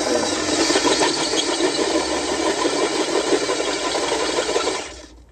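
Cordless drill boring through a truck's steel frame rail under heavy pressure, levered in with a 2x4, running steadily with a grinding bite and stopping about five seconds in.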